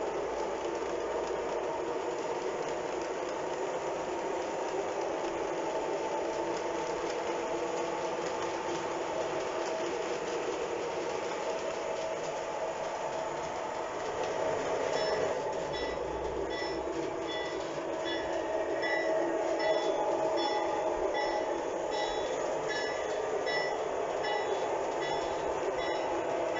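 Lionel LionChief O-scale train rolling on three-rail track: a steady rumble of wheels and motors. From about halfway in, a high ding repeats about twice a second.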